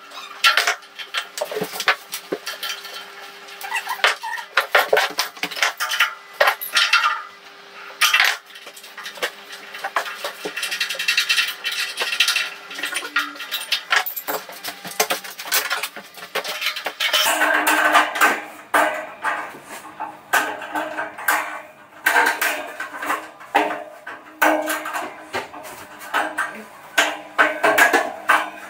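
Irregular metallic clinks and knocks as tools and fittings are worked at a steel panel radiator's valve end, over background music of sustained held notes.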